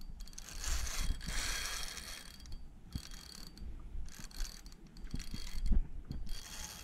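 Fishing reel being cranked against a heavy fish, grinding and squeaking in spells of winding, with sand or grit in its works.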